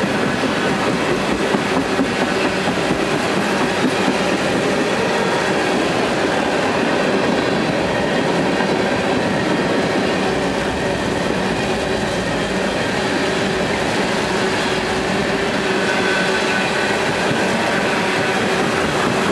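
Freight train tank cars rolling past, with a steady rumble and the clatter of steel wheels over the rail joints. A faint, high wheel squeal comes in briefly about three-quarters of the way through.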